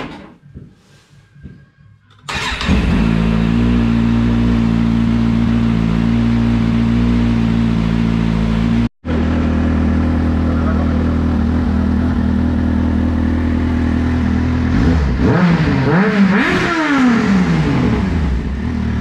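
Kawasaki Z1000's inline-four engine starts about two seconds in and idles steadily, then is revved a few times near the end, running after its spark plugs have been replaced.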